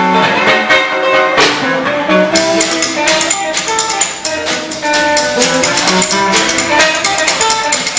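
Live band playing an instrumental number: strummed acoustic guitar and electric guitar over upright bass and drum kit.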